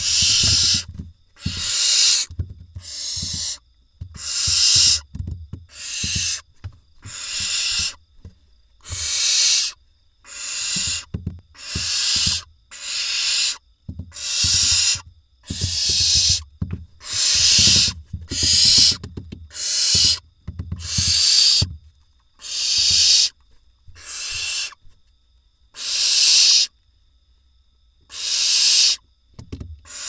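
Barn owl nestlings giving their rasping, hissing food-begging calls: one drawn-out hiss roughly every second, repeated over and over, with a short break near the end.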